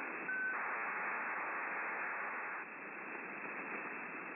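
HF Data Link (HFDL) signal on a shortwave receiver in upper sideband. Steady static hiss is broken about a third of a second in by a short steady tone, then about two seconds of louder rushing data noise, before the plain hiss returns. The burst is an aircraft's air-to-ground data message, which the decoder reads.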